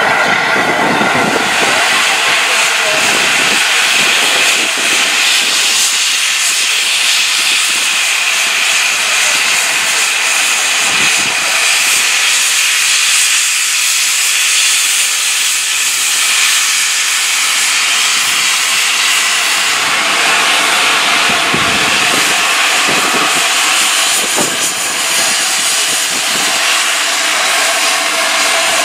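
Loud, steady hiss of steam blowing from the cylinder drain cocks at the front of the LNER A4 steam locomotive 60007 Sir Nigel Gresley.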